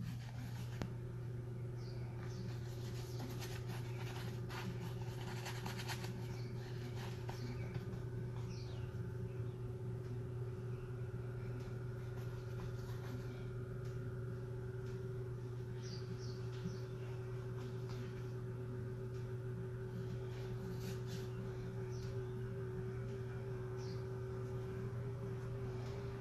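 Steady low hum of studio room tone, joined about a second in by a steady higher tone, with faint scratchy strokes of an oil-paint brush on canvas now and then.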